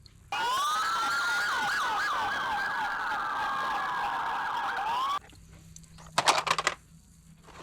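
Electronic toy siren sounding for about five seconds, its pitch sweeping quickly up and down over several overlapping tones. It starts and cuts off suddenly. A few sharp clicks from the toy being handled follow about a second later.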